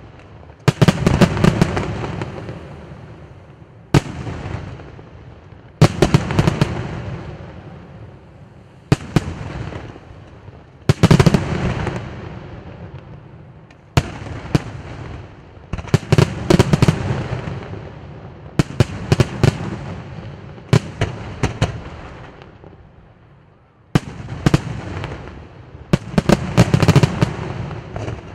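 Aerial firework shells bursting in steady succession: a sharp bang every two to three seconds, often several in quick clusters, each followed by a long rolling echo that fades away.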